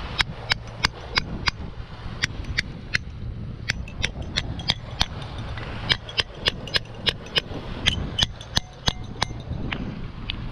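A series of sharp clicks or taps, about three a second in uneven runs with short pauses, over a steady low wind rumble.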